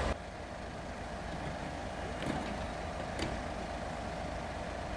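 Class 67 diesel locomotive running steadily, a low drone with a faint clicking now and then.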